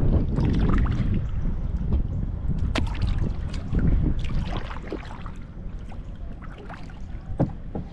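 Kayak paddle strokes, water splashing and trickling off the blades at irregular moments, over heavy wind noise on the microphone.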